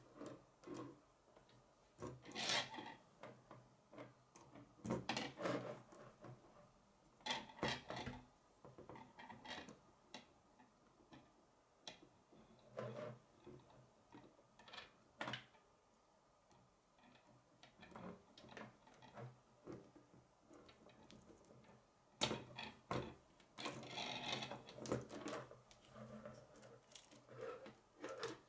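Plastic K'nex rods and connectors clicking and snapping together as they are fitted by hand, in irregular bursts of clicks and rattles.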